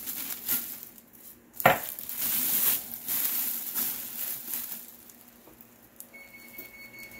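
Plastic oven bag crinkling and rustling as it is opened out and handled, with one sharp knock about a second and a half in. Near the end an oven's electronic beep sounds as a steady high tone for about a second.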